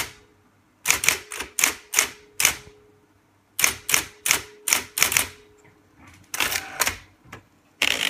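Olympia Report de Luxe electric typewriter being typed on: quick runs of sharp key strikes, about half a dozen at a time, with short pauses between the runs.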